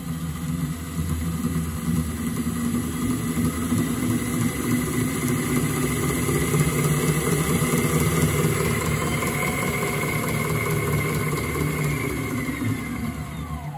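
Miele Professional WS5073 washing machine's brushless induction motor running steadily and turning the drum through its poly-V belt on a spin cycle, a steady hum with a faint whine. The motor is running smoothly on its freshly replaced 6202zz bearings. The sound gets quieter near the end.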